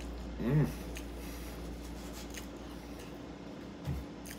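A person chewing a mouthful of breakfast taco, with a short hummed "mm" about half a second in and faint crunchy clicks. A soft low thump near the end as the taco is set down on the plate.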